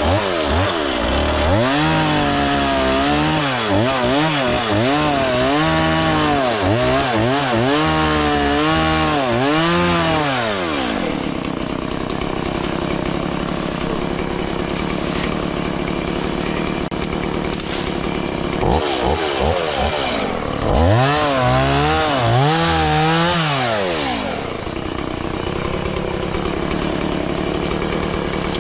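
Chainsaw cutting through overgrowth, its engine revving up and down over and over as the throttle is worked. About eleven seconds in it settles into a steadier drone, then revs up and down again for a few seconds near the twenty-second mark.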